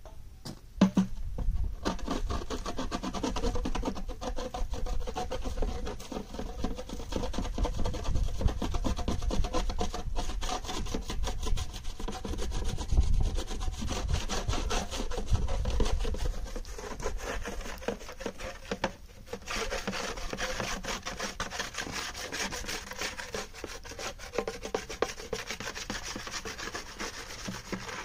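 Continuous scratchy scraping and rubbing of dry clay being worked by hand. It starts about two seconds in.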